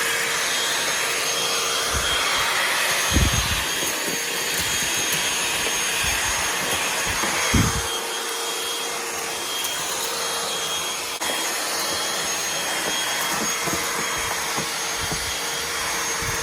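Cordless handheld vacuum cleaner running on a 20-volt DeWalt battery: its motor gives a steady whine over an even rushing hiss, with a few short low thumps a few seconds in and again about halfway.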